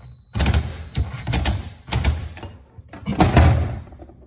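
Hands working the fuel pump assembly and its fittings: four separate bursts of clattering and scraping, about a second apart, the last one the loudest.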